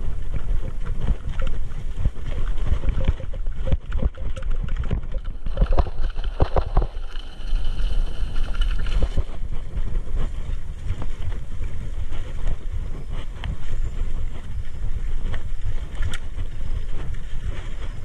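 Mountain bike riding fast over a rough dirt single track: a steady rumble of wind buffeting the camera microphone, with the bike rattling and knocking over bumps and roots.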